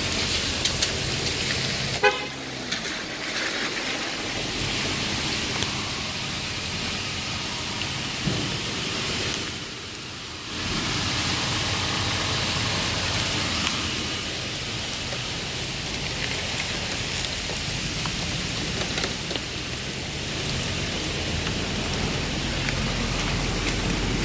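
Steady rain hiss with street and car noise, and a short sharp sound about two seconds in.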